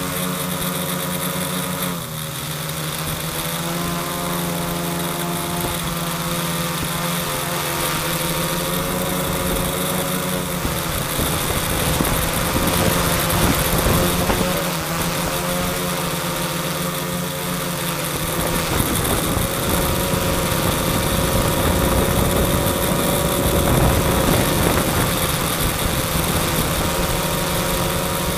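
A quadcopter's electric motors and propellers buzzing, heard from a camera mounted on the craft itself: a steady pitched hum that shifts slightly in pitch as the motors adjust their speed, with a rougher low rumble joining about two-thirds of the way in.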